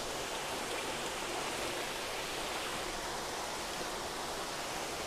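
Steady rushing noise of water running through a recirculating fish-tank system, with no distinct splashes or knocks.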